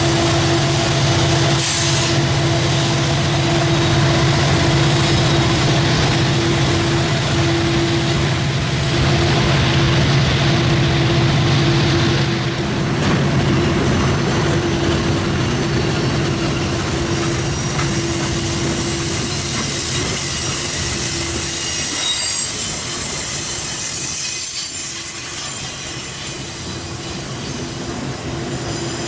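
A train rolling past at track level: a continuous rumble of cars and wheels on the rails, with high-pitched wheel squeal and some clickety-clack, strongest in the second half.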